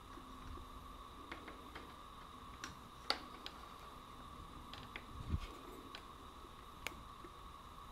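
Faint, irregular clicks and ticks from the borescope probe and its cable being handled and fed into the engine's spark plug hole, with one low thud about five seconds in, over a faint steady high whine.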